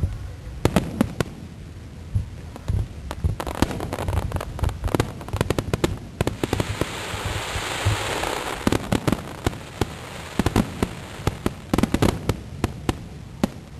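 Aerial fireworks going off: a dense run of sharp bangs and cracks, with a thick hissing crackle swelling about halfway through.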